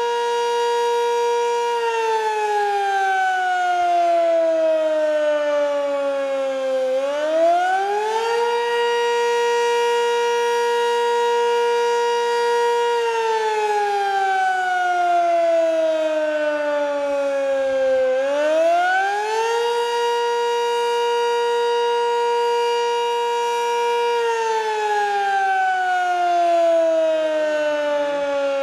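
American Signal Sentry 20V2T dual-tone outdoor warning siren sounding a wail during a test. Its pitch holds for a few seconds, slides down over about five seconds, then climbs back quickly, and repeats this about every eleven seconds.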